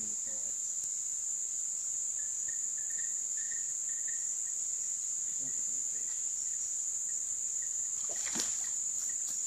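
Steady, high-pitched drone of insects, unbroken and even in level. A brief splash about eight seconds in.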